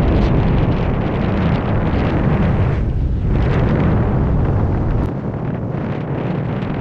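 Wind buffeting the microphone of a camera held out in the airstream while speedflying: a loud, steady rush with a heavy low rumble. The deep rumble drops away and the noise eases slightly about five seconds in.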